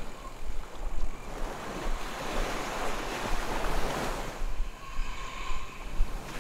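Small waves washing onto a sandy beach, the surf swelling and easing every second or two, with wind rumbling on the microphone.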